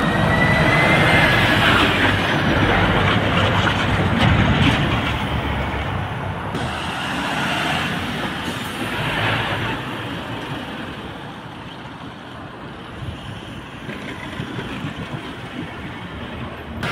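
Heavy lorries passing close by on the road across a level crossing, engines running and tyres rumbling over the crossing. The noise is loudest in the first few seconds and then fades. A short high squeal sounds right at the start.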